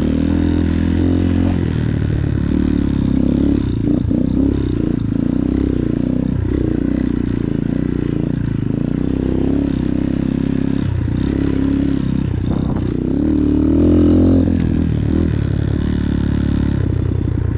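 X-Pro Titan 250cc dirt bike's single-cylinder four-stroke engine running under way on a trail, its pitch rising and falling with the throttle. It gets louder briefly about three-quarters of the way through.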